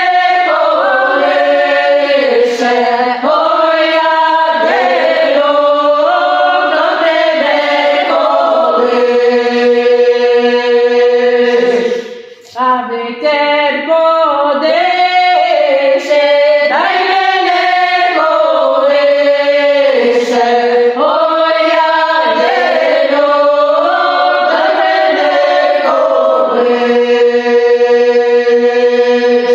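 A group of women singing a Ukrainian folk song unaccompanied in several voice parts, holding long notes. There is a short break between phrases about twelve seconds in.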